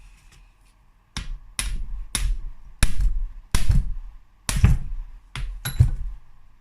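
Hammer blows, about nine sharp metallic strikes at uneven intervals, knocking loose the crankcase screws of a two-stroke motorcycle engine.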